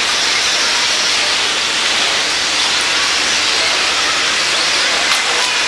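Electric radio-controlled stadium trucks racing on a dirt track: a steady high hiss of their motors and tyres.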